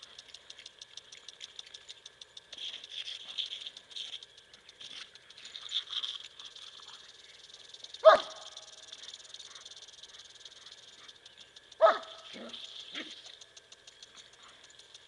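A dog barks twice, short and sharp, about eight and twelve seconds in. Under it runs the steady hiss and fast, even ticking of a lawn sprinkler whose water jet the dog is playing in.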